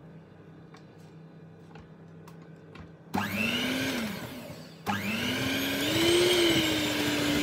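Electric hand mixer beating milk into cake batter in a glass bowl. After a few quiet seconds it switches on about three seconds in with a motor whine that rises and falls. It stops briefly, then starts again and climbs to a steady pitch.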